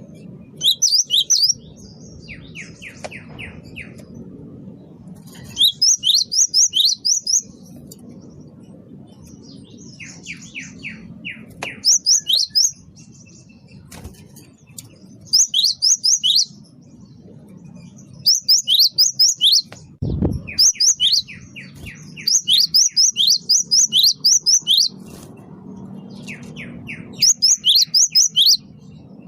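Cinereous tit (gelatik batu) singing energetically, phrase after phrase of rapid, sharp repeated notes, each phrase a second or two long with short pauses between. A single low thump comes about two-thirds of the way through.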